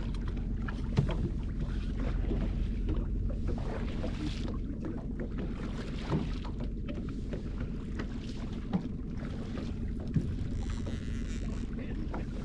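Boat motor running steadily at slow trolling speed, with a few knocks and clatter on the boat's deck, the sharpest about a second in and again near the end.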